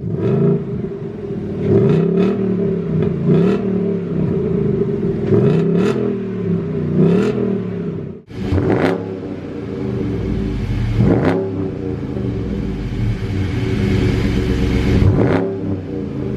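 V8 muscle car engine idling and revved in short blips, about five quick revs in the first half. After a sudden brief break, an engine with a deeper idle is revved three more times, more slowly.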